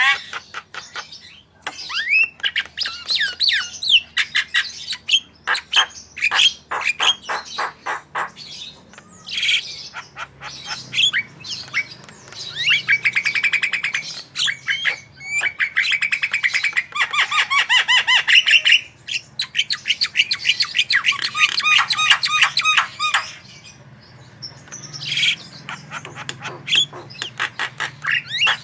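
Javan myna singing in full voice: a long, varied run of chattering clicks, whistled notes and fast rattling trills, laced with mimicked calls of other birds, broken by a brief lull near the end.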